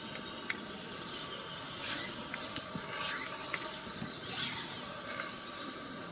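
Fly line being stripped in by hand through the rod guides: a few short, irregular hissing swishes, with faint ticks between them.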